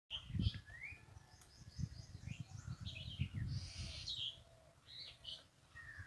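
Birds chirping and calling in short high chirps and quick rising and falling notes, over low, uneven rumbling noise.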